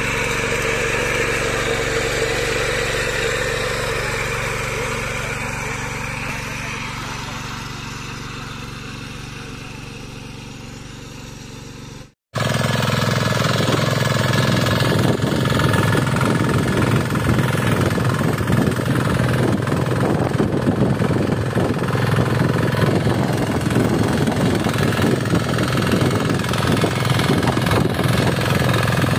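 5.5 HP diesel power weeder running under load, its rotary tines churning soil. The engine sound fades gradually over the first twelve seconds, drops out for an instant, then comes back louder and steady with a rapid clatter.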